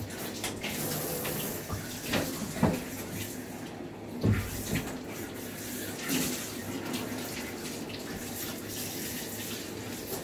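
Water spraying steadily from a handheld grooming-tub sprayer into a poodle's long coat as it is soaked down, a continuous hiss of running water. A few short thumps come through it.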